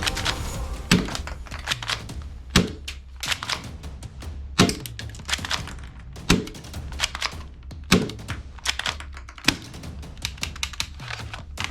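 Rapid clicking and tapping over background music that has a heavy low beat about every second and a half to two seconds.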